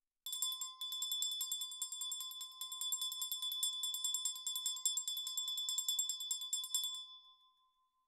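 A small bell, heard from two to three feet away, rung rapidly and continuously, its clapper striking several times a second over a steady high ring. The striking stops about seven seconds in and the ring dies away.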